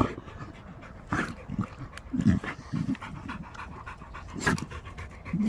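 American Pit Bull Terriers panting in uneven bursts while digging at a burrow, with sharp scrapes and knocks from dirt and roots.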